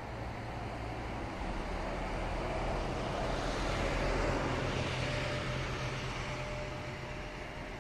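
A motor vehicle passing by: its noise swells to a peak about four seconds in and then fades, over a steady low hum.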